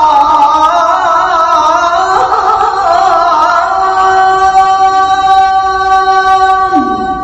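A male muezzin's voice singing the adhan, drawing out one phrase in a long melismatic run. Rapid wavering turns come first, then a steady held note about halfway through, which breaks off near the end and dies away in reverberation.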